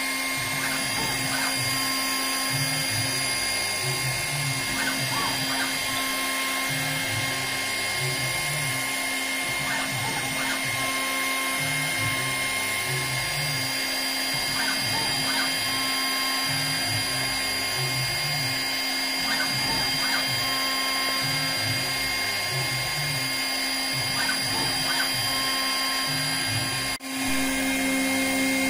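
6040E CNC milling machine cutting metal: the spindle runs with a steady high whine while the axis motors change pitch as the table feeds back and forth, the pattern repeating about every five seconds with the toolpath. Near the end the sound drops out for a moment, then the machine runs on with a steadier tone.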